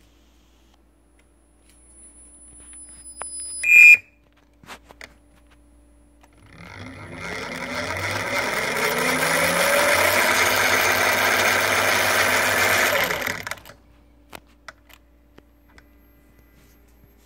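Brushless electric motor of an RC car, driven by its speed controller in FOC mode, spinning up with a rising whine, holding a steady speed for several seconds, then stopping. A brief, loud, high-pitched sound comes about four seconds in, before the motor runs.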